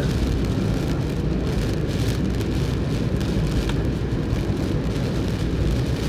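Steady road and rain noise inside a moving car in typhoon weather: tyres on the wet road and rain on the body, a low, even rumble with faint scattered ticks.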